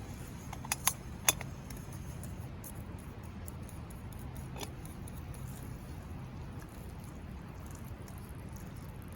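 Light clinks of eating utensils against camp cookware: three sharp clicks about a second in and another near the middle, over a steady low rumble.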